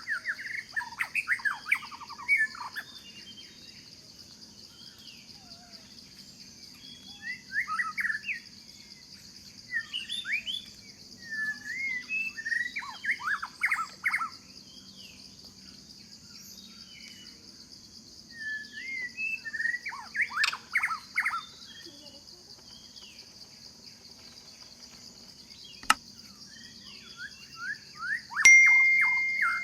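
Birds calling in several bouts of rapid chirps, over a steady high insect drone. A single sharp click sounds near the end.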